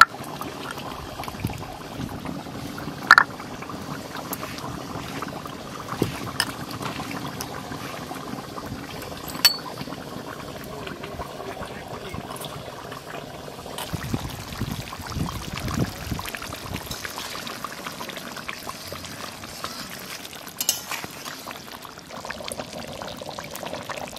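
Garam masala being ground with a stone roller on a flat grinding stone (sil-nora), then water poured from a small steel bowl over the stone to wash the paste off, with a few sharp clinks.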